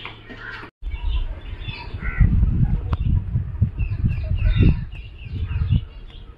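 Small birds chirping and calling over a loud, irregular low rumble on the microphone, which is heaviest from about two seconds in until near the end. The sound cuts out briefly just before a second in.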